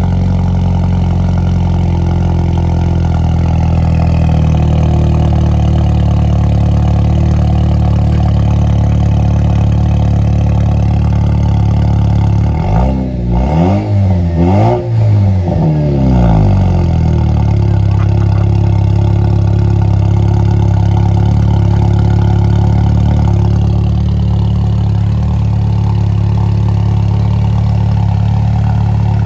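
Jeep Wrangler JL's 2.0-litre turbocharged four-cylinder idling through a Flowmaster American Thunder high-clearance muffler-delete pipe just after a cold start. It is revved twice briefly about halfway through, then settles back to a steady idle.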